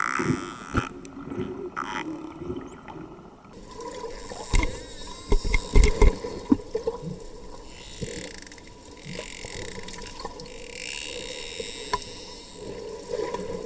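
Dolphins recorded underwater: sharp clicks, loudest in a cluster around the middle, with a few faint whistles gliding in pitch over a steady water hiss.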